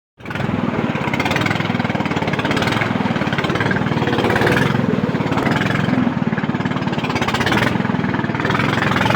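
A small boat's motor running steadily under way, with a fast, even engine pulse.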